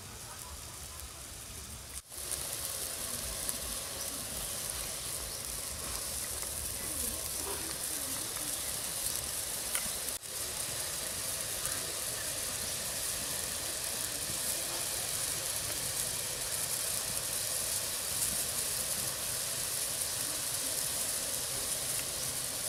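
Steady sizzling hiss of water snakes cooking in a pot on a wood fire, broken briefly twice.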